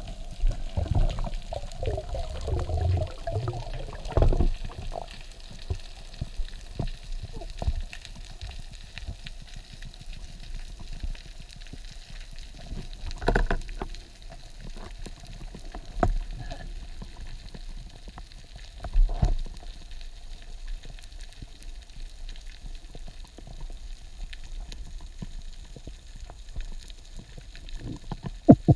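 Underwater sound: a constant fine crackling, with occasional low thuds and swishes of water moving around the microphone.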